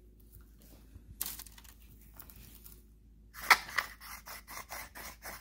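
Hand-held herb grinder being twisted, its teeth grinding dried cannabis buds. The grinding is a quick run of rasping strokes, about four a second, starting about three seconds in, after a few soft clicks.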